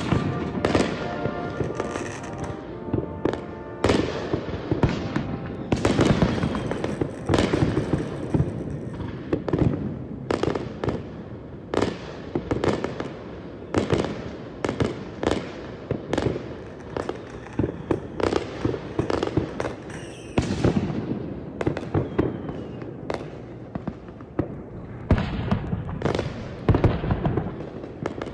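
Aerial fireworks shells bursting in quick succession: sharp bangs and crackles about one to two a second, each echoing into the next.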